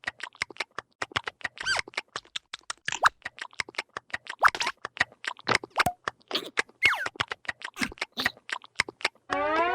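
Cartoon sound effects: a fast run of light pattering taps, about six a second, mixed with short squeaky chirps that glide in pitch. Near the end comes a squeal that falls in pitch.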